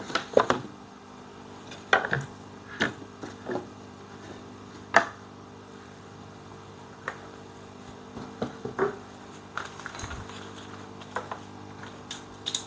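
Scattered knocks and clatters of wooden rack panels and frames being handled and fitted together, with tools clinking in a plastic toolbox, over a steady low hum.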